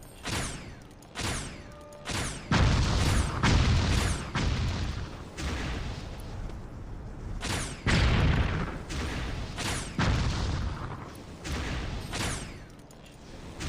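A sound effect of repeated sharp blasts: over a dozen shot-like hits at irregular intervals, several with a deep boom and a falling swoosh trailing each one.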